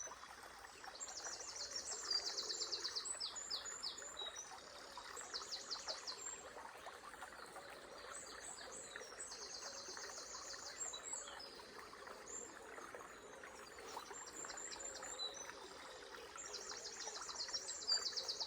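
Songbirds singing in short, rapid trilled phrases that come again and again, over the steady rush of flowing river water.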